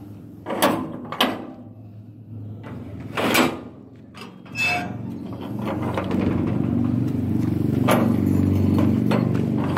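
A few sharp knocks, then an engine running, growing louder over a few seconds from about halfway and holding steady near the end.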